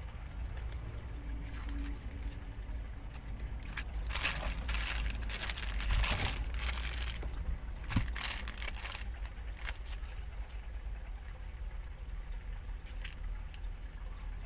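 Thin plastic mailer bag crinkling and rustling in a run of bursts as it is handled, loudest a few seconds in, over a steady low rumble.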